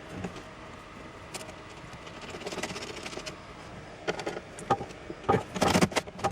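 Pickup truck door handle and latch rod linkage being worked by hand inside the open door: scattered small metallic clicks and rattles, with a quick run of louder clicks about five seconds in.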